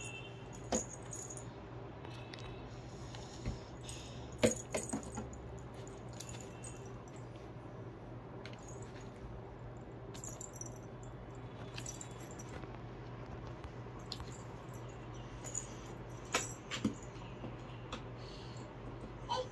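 A toddler handling a thick cardboard board book, with scattered taps and page knocks and the light metallic jingle of metal bangles on his wrists, over a steady low hum.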